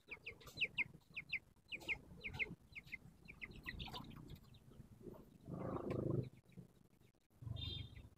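Young chickens peeping in short, high chirps that fall in pitch, several a second, with a lower, longer call from a chicken a little past halfway through.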